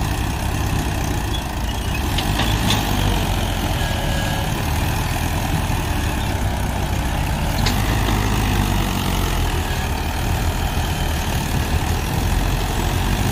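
Tractor diesel engines, the Mahindra 475 DI's and the towing tractor's, running steadily under load as they work to free the Mahindra and its trolley from the sand. A few brief clicks sound about two and seven seconds in.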